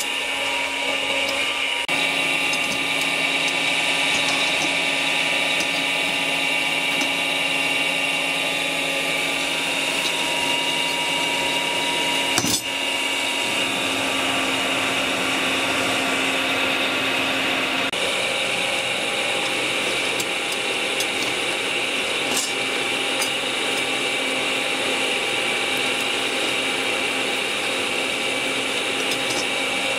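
Electric forge blower running steadily, a motor whine over rushing air, blowing a charcoal fire to heat a knife blade. A single sharp knock comes about twelve seconds in.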